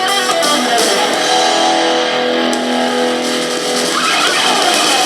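A guitar-led song playing through a small JLab B-Flex USB laptop speaker, with almost no deep bass.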